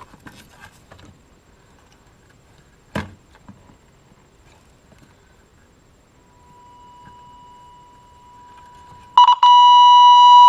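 Steady test tone played through the Midland 13-862B CB radio's speaker: faint at first, then suddenly loud near the end, a sign that the speaker lead, which had been grounding out on a meter terminal, now carries the audio. A single click about three seconds in.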